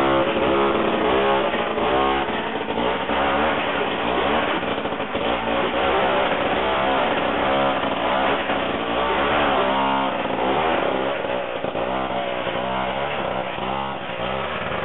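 Small gasoline engine revving up and down over and over, its pitch rising and falling about once a second.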